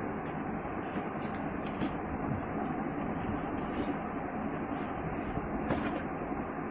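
Packaging rustling and crinkling in short irregular bursts as a parcel is opened by hand, over a steady background hum.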